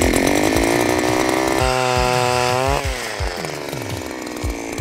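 Power ice auger drilling through lake ice, its small motor running hard at a steady high speed. About three seconds in the pitch drops and the motor keeps running more slowly.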